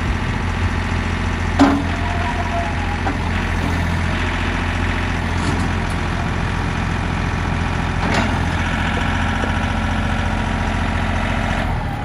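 Mahindra 1635 HST tractor's three-cylinder diesel engine running steadily while the backhoe is worked by its hydraulic levers. Two short sharp knocks come through, about one and a half seconds in and again about eight seconds in.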